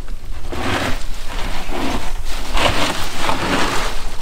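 Loud rushing and splashing of water with a steady low rumble underneath, swelling and easing several times.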